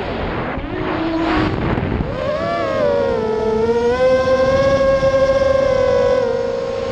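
ImmersionRC Vortex 250 Pro racing quadcopter's brushless motors and propellers whining. The pitch drops sharply right at the start as the throttle is cut for a dive, climbs back about two seconds in, and then holds fairly steady under throttle.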